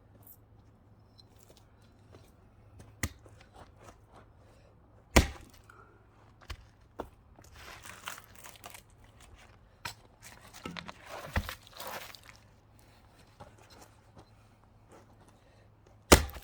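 Axe splitting firewood by hand: several separate sharp chops into wood, the hardest about five seconds in and near the end, with rustling as the wood is handled between strikes.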